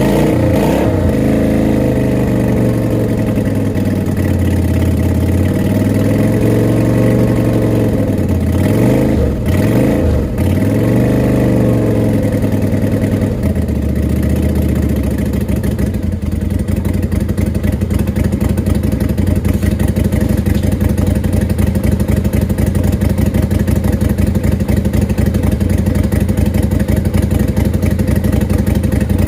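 Lifan V16 motorcycle engine running through an aftermarket curved horseshoe exhaust. It is revved up and down with several quick throttle blips, then settles to a steady idle about halfway through.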